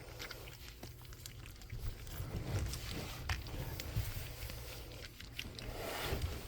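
Four-week-old pug puppies making soft snuffling, chewing and mouth-smacking sounds, with small clicks and a few louder swells.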